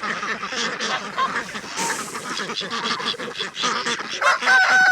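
A flock of farm ducks quacking and chattering as they crowd around a fresh bowl of feed. A long steady tone starts near the end.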